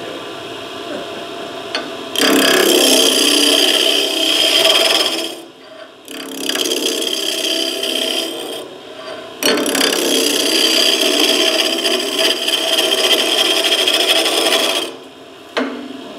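Skew chisel cutting wood spinning on a lathe: three long passes, each a loud steady hiss, with the lathe running quieter in the gaps between them.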